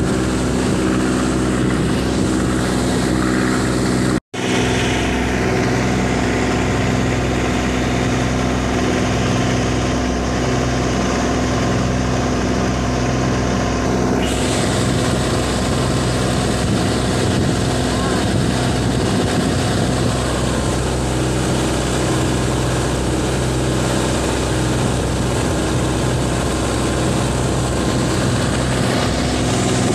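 A flatboat's Mitsubishi 4DR5 four-cylinder diesel engine running steadily under way, with water rushing past the hull. The sound cuts out for an instant about four seconds in.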